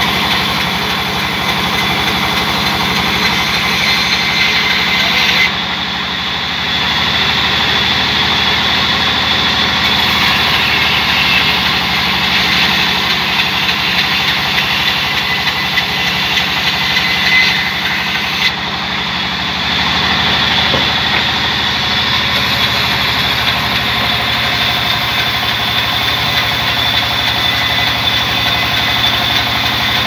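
Large sawmill band saw running steadily, ripping a long log lengthwise into planks. Its upper part dips briefly twice, about five and eighteen seconds in.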